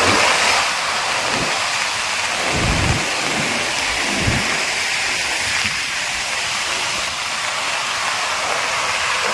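Floodwater rushing in a swollen river, a steady rushing noise with a few brief low rumbles.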